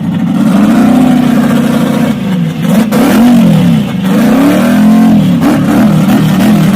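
Twin-turbo V8 of a Ford Maverick Pro Mod drag car running loud: a steady high idle for about two seconds, then a string of quick revs, each rising and falling, about once a second.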